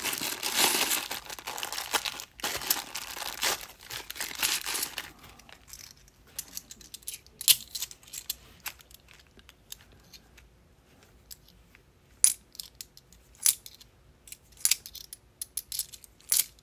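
Clear plastic coin bag crinkling as it is handled for about five seconds. After that, scattered sharp clicks of £2 coins knocking against each other in the hands as they are turned over and sorted.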